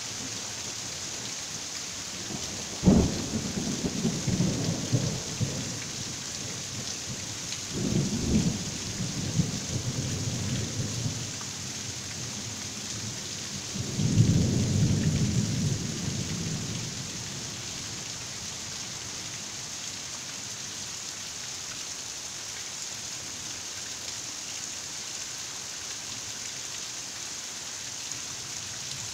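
Heavy rain falling steadily, with three peals of thunder: a sharp crack about three seconds in that rolls on for a few seconds, another about eight seconds in, and a longer low rumble about fourteen seconds in.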